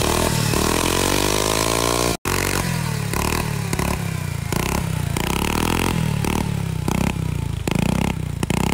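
Suzuki Skydrive 125 scooter's single-cylinder four-stroke engine revving through a freshly fitted ORBR V2 aftermarket exhaust, with repeated throttle blips rising and falling in pitch. The first rev climbs steadily for about two seconds, and the sound drops out briefly just after it.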